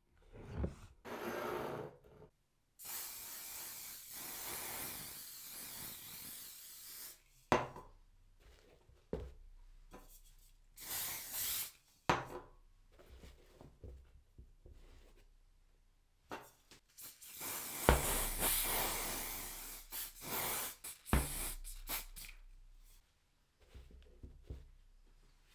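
Shoe-cleaning sounds: two long, steady hisses, one of about four seconds and one of about three, with short bursts of rubbing and a few sharp knocks of handling between them.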